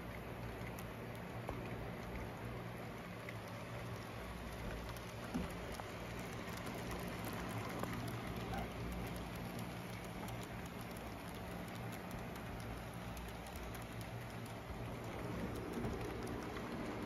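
Model trains running on their track: a dense, even patter of small wheels clicking over rail joints, over a steady low hum.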